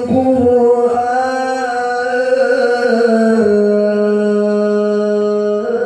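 A male qari's voice in melodic Quran recitation (tilawah), drawing out one long ornamented note. About three and a half seconds in, the note steps down to a lower pitch and is held steady until near the end.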